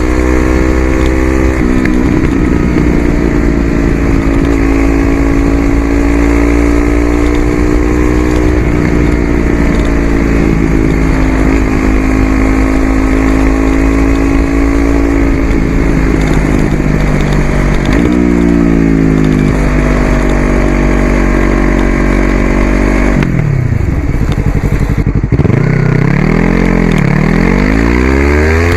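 Yamaha YZF-R3 parallel-twin engine through an aftermarket Coffman's exhaust, running loud at steady revs for long stretches. The pitch steps down near the start, rises and falls about two-thirds through, then near the end drops low and swings up and down several times.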